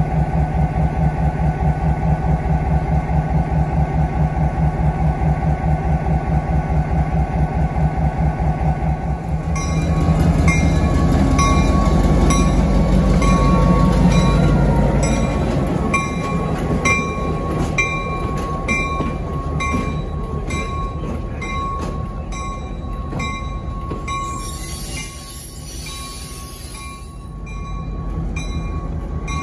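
Diesel switcher locomotive running close by with a steady, pulsing engine beat. About ten seconds in the engine gets louder for several seconds as it works, and a regular ringing clang about once a second joins in and carries on.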